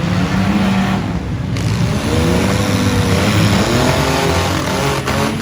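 Several demolition derby cars' six-cylinder engines revving at once, their pitch rising and falling as the cars accelerate and back up in the arena.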